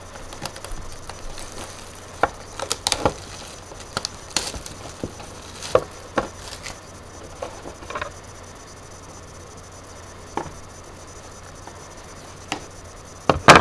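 Cardboard trading-card hobby box being opened by hand: scattered taps, light scrapes and clicks as the box is opened and the mini boxes inside are handled. The loudest is a sharp knock near the end.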